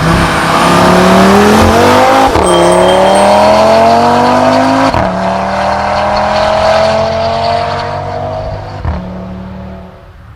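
Audi RS3's turbocharged 2.5-litre inline five-cylinder engine accelerating hard, its pitch rising and dropping sharply twice as it upshifts through the gears, then fading away near the end.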